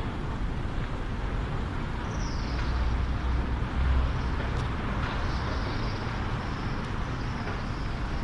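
City street traffic noise: a steady wash of passing vehicles with a low rumble that swells about four seconds in. A faint high squeal comes in about two seconds in and again later.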